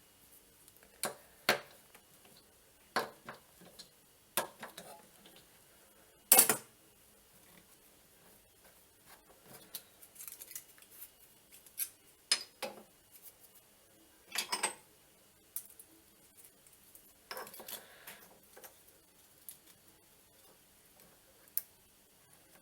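Hand tools and small steel parts clinking and tapping as they are handled and set down on a hard surface: a dozen or so sharp metallic knocks at irregular intervals, the loudest about six seconds in.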